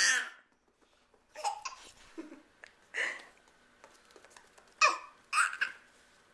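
Baby laughing and babbling: a loud laugh trails off at the start, then several short giggling or babbling bursts follow a second or so apart.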